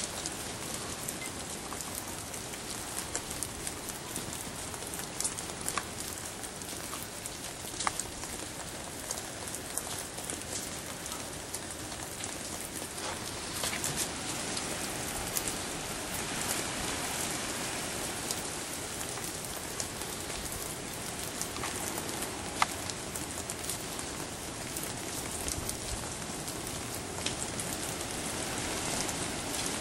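Steady rain falling, a continuous hiss with many scattered sharp ticks of individual drops; two louder ticks stand out, about eight seconds in and again past the twenty-second mark.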